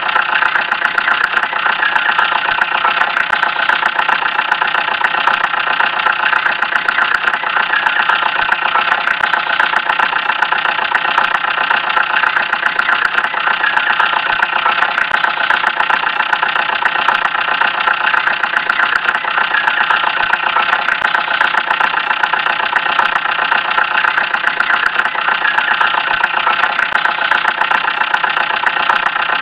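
Small battery-powered DC motor of a homemade toy tractor running steadily, turning a miniature flour mill through a rubber-band belt as it grinds dried chillies. It is a continuous, even whir with a fast fine rattle and no let-up.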